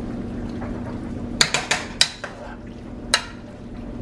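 A spoon stirring pasta and ground meat in a pot, knocking sharply against the pot about five times from about a second and a half in. A steady low hum runs underneath.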